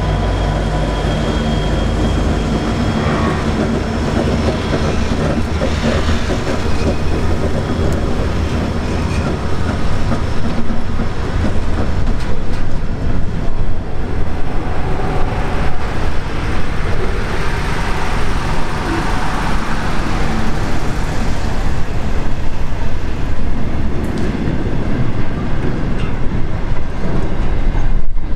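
Intermodal freight train passing close by: the diesel locomotives' engine drone fades in the first few seconds, then container wagons rumble and clatter past on the rails, louder from about ten seconds in.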